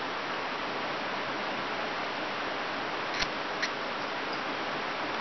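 Steady rush of flowing river water, with two sharp clicks a little over three seconds in.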